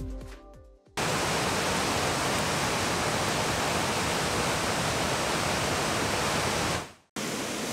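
Electronic music fades out within the first second. Then a steady, even rush of flowing water, which cuts off abruptly near the end.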